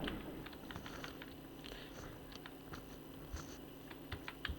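Computer keyboard keystrokes: irregular key clicks in short runs, sparse through the middle and quickening near the end.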